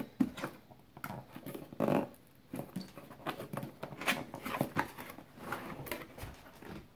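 Hands opening a cardboard retail box: fingers picking and peeling the tape seal, then lifting the lid flaps, a run of irregular scratches, taps and rustles with a louder scrape about two seconds in.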